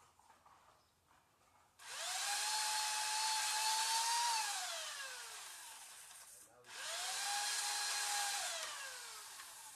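Chainsaw run twice, with a short break between. Each time the motor whines up to speed, holds steady, then its pitch slides down over a couple of seconds.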